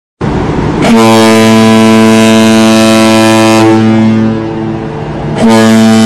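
Ship's horn sounding long blasts, the man-overboard signal of three long blasts. One long steady blast is followed by a dip in loudness of about a second and a half, then a second blast starts near the end.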